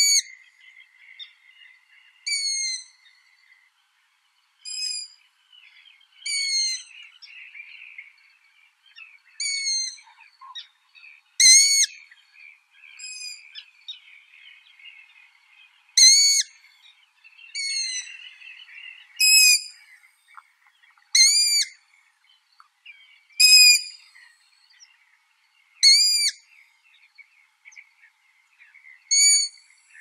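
Long-eared owl chicks giving begging calls: short, high calls, each rising and then falling in pitch, repeated about every two seconds, with faint softer twittering between them.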